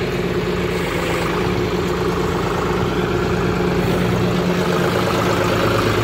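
John Deere 5310 tractor's three-cylinder diesel engine idling steadily.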